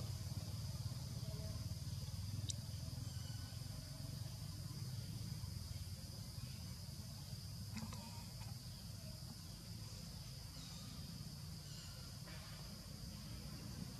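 A steady, high-pitched insect drone, with a low rumble underneath and a few faint clicks.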